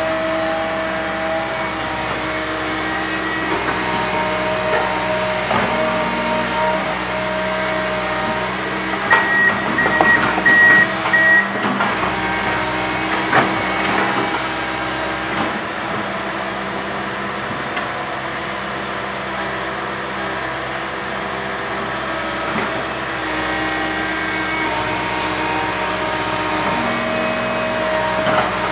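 Komatsu PC160 hydraulic excavator's diesel engine running steadily while digging, its tones shifting now and then, with a cluster of clanks and knocks about nine to fourteen seconds in.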